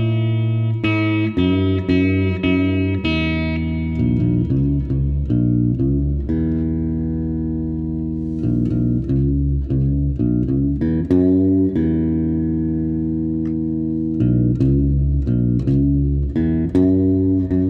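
Fretless seven-string electric guitar played solo: a blues line of plucked, low-pitched notes, some held and ringing, with the pitch sliding smoothly between notes.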